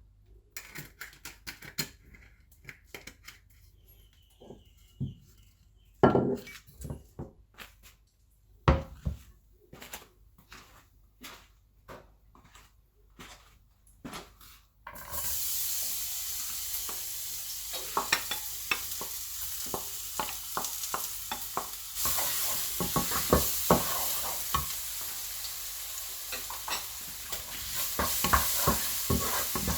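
Stir-fry cooking: a utensil clinks and knocks against a pan, then about halfway through a steady sizzle of food frying in hot oil starts suddenly. Quick stirring knocks and scrapes continue over the sizzle, which grows louder twice near the end.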